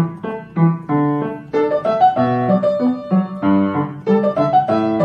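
Background music: a piano-like keyboard playing a bouncy tune in short, rhythmic notes and chords.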